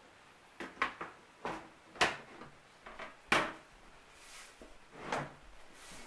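Side panel of a Cooler Master CM Storm Trooper computer case being fitted onto the case and slid into place: a run of irregular sharp knocks and clicks, the two loudest about two and three and a half seconds in, with a brief scrape of the panel sliding near four seconds.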